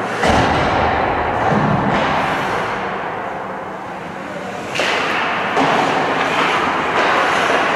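Arena din of an ice hockey game in play: a steady noisy wash from the skaters and the rink, with a sudden thump about a quarter second in. The din eases off in the middle, then grows louder again about five seconds in.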